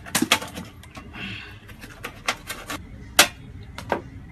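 Irregular clicks and knocks of bananas being handled and pressed onto the steel pan of a digital weighing scale, with a brief rustle just after the first second and the loudest knock about three seconds in.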